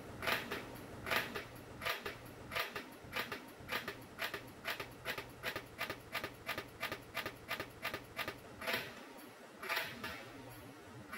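3D printer on flexible-filament anti-vibration feet, running with a series of sharp ticks that come closer together to about three a second, over a low steady hum that stops about nine seconds in.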